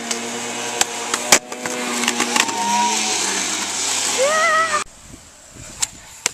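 Skateboard wheels rolling on pavement, with sharp clacks of the board, the loudest about a second and a half in. A person's voice calls out in the middle, and after a sudden drop in the noise near the end there are a couple more board clacks.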